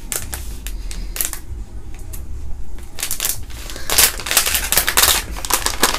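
Plastic candy bag crinkling and crackling as it is handled and opened by hand, in a run of sharp crackles that gets louder and denser about four seconds in.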